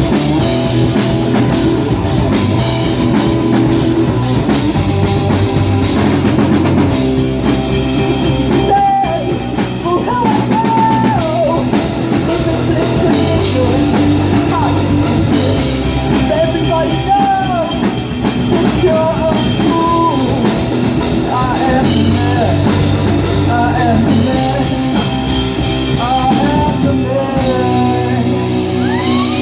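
Live rock band playing a loud instrumental stretch of a song, with drum kit, guitars and bass; from about nine seconds in a wavering, pitch-bending lead line runs over the band.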